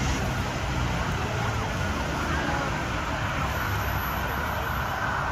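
Steady din of a busy open-air market with a low traffic rumble. A faint high steady tone comes in about halfway through and holds.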